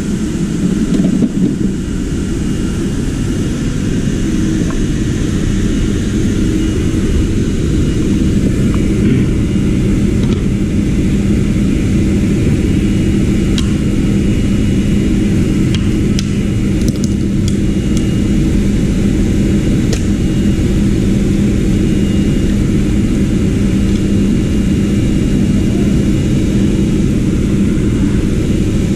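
A motor running steadily with a loud, even whir and a low hum, with a few light clicks near the middle.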